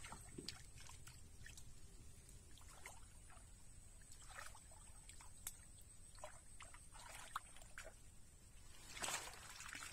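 Faint sloshing and small splashes of shallow muddy water as a round hand net is worked through a flooded rice field, with a louder splash near the end.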